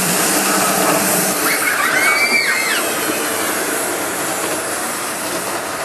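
Miniature live-steam C58 locomotive running with riders aboard, its steam hissing steadily. A brief high call rises and falls about a second and a half in.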